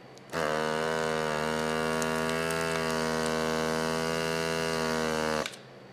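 Electric vacuum sealer's pump running with a steady hum for about five seconds as it draws the air out of a plastic bag, then cutting off abruptly.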